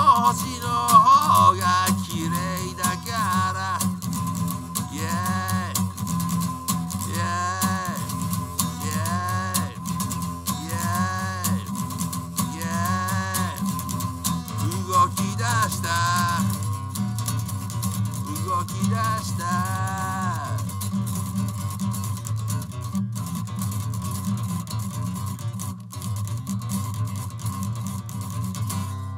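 Acoustic guitar strummed steadily while a man sings long drawn-out notes over it; the voice stops about two-thirds of the way through and the guitar carries on alone, getting quieter near the end.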